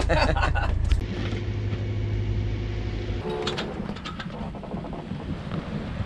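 Sailboat's Yanmar marine diesel engine running with a steady drone, then, from about three seconds in, wind buffeting the microphone on open water.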